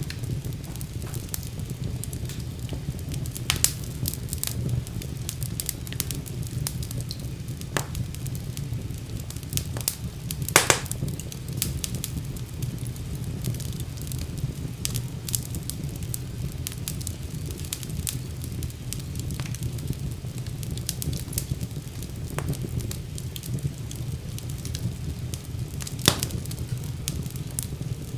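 Wood fire burning in a fireplace: a steady low rumble of the flames with sharp crackles and pops at irregular intervals, the loudest pops about 3.5, 10.5 and 26 seconds in.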